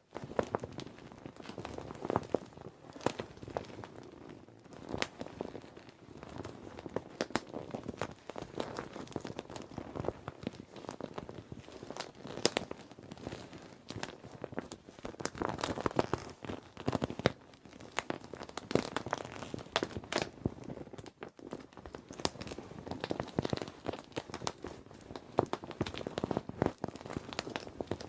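Children's inflatable plastic swim ring being handled and squeezed: continuous irregular crinkling and crackling of the plastic, with louder bursts now and then.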